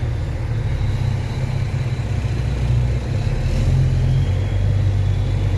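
Volvo NH 380 truck's diesel engine running as the truck drives slowly along a street, heard from inside the cab as a steady low drone whose pitch shifts a little about three seconds in.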